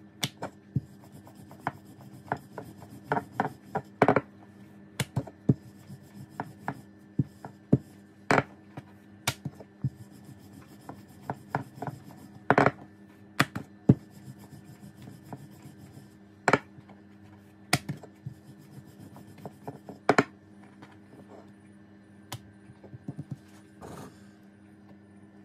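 Wooden rolling pin rolling out a ball of dough into a flat round on a granite countertop: rubbing and rolling with frequent sharp clicks and knocks, about one or two a second.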